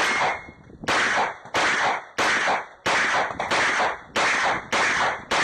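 Glock 34 9mm pistol fired in a steady string, about nine shots roughly two-thirds of a second apart, each with a long trailing tail.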